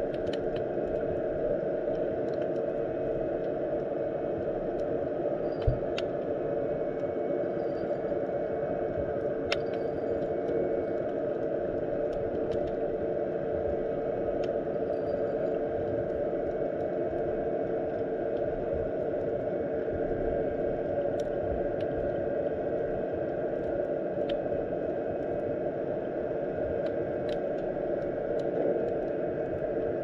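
Underwater ambience of shallow sea water: a steady low rushing noise with scattered faint clicks and ticks, and a sharper knock about six seconds in and again near ten seconds.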